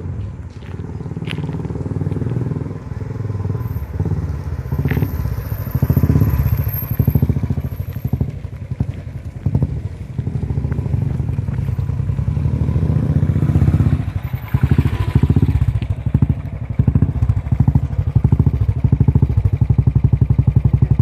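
Royal Enfield Bullet Classic single-cylinder engine running through a Sans short-bottle glasswool silencer while riding, its exhaust beat rising and falling with the throttle. In the last few seconds it settles into a steady, even thump.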